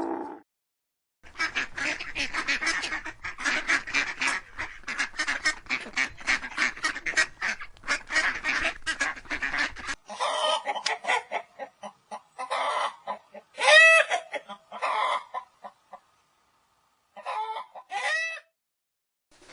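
Domestic fowl calling: a dense run of rapid overlapping calls from a flock, then a cut to single honking calls with an arched, rise-and-fall pitch, the loudest about two-thirds of the way in.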